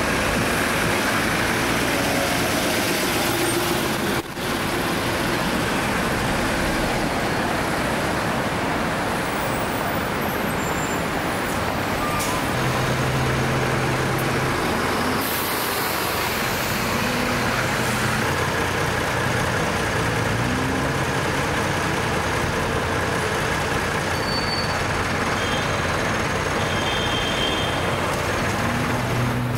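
Diesel engines of AEC Routemaster double-deck buses running and pulling up close by amid busy street traffic. The sound cuts out briefly about four seconds in.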